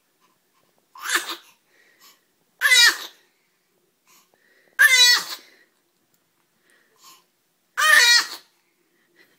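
A young baby's voice: four short, high-pitched squeaky bursts a couple of seconds apart.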